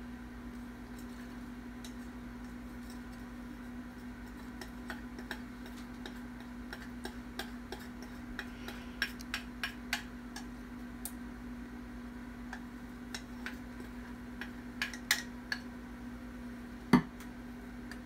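Sparse light clicks and taps of a glass bowl and a silicone spatula as thick sauce is poured out and scraped from the bowl, with one sharper knock near the end. A steady low hum runs underneath.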